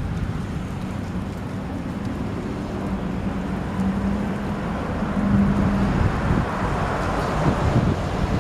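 Road traffic: a vehicle's engine hum that fades about six seconds in as a rushing tyre-and-road noise builds, with wind buffeting the microphone.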